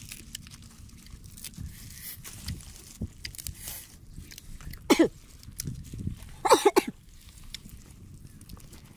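Fingers tearing apart grilled frogs, with soft crackling and rustling. About five seconds in, and again a second and a half later, come short, loud, throaty bursts like a person clearing the throat.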